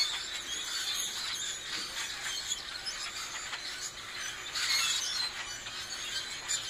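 A large flock of birds calling all at once: a dense, unbroken chatter of high, squeaky chirps and whistles, swelling a little about five seconds in.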